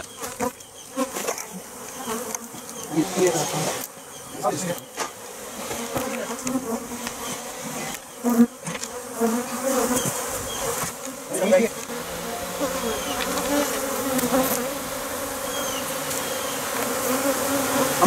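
A colony of honey bees buzzing in the air around their freshly exposed comb, a steady wavering hum of many wings. A few sharp knocks sound here and there among the buzzing.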